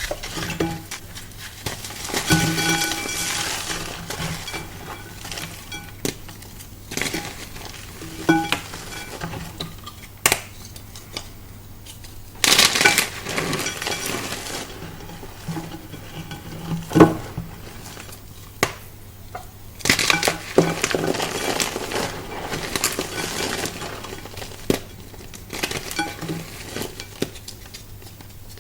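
Hydrophobic chalk being crushed, in repeated bouts of crackling and crunching with sharp clicks, the loudest crunches about halfway through.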